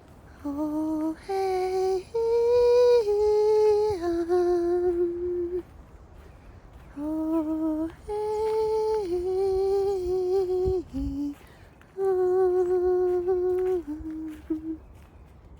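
A single voice singing a slow, wordless improvised chant: long held, humming-like notes in three phrases with short pauses between them.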